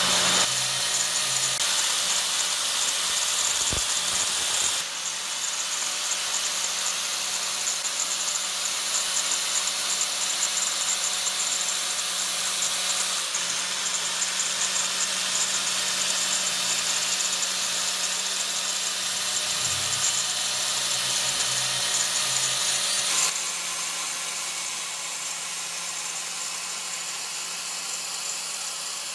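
Electric power tool running steadily while it works on the knife's metal, with abrupt drops in level about five seconds in and again near the end, where the footage is cut.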